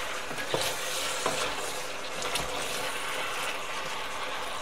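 Diced carrots and onion in tomato sauce sizzling as they stew in a stainless steel pot, stirred with a wooden spatula; a steady hiss with a few soft knocks of the spatula against the pot.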